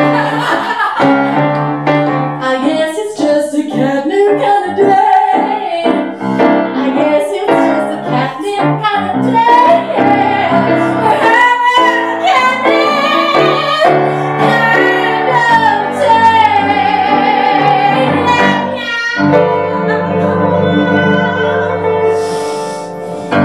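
A woman singing a musical-theatre song with piano accompaniment, closing on long held notes over sustained chords.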